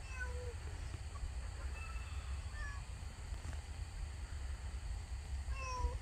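Short animal calls: brief pitched notes that each fall slightly, a few in the first three seconds and two more near the end, over a steady low rumble.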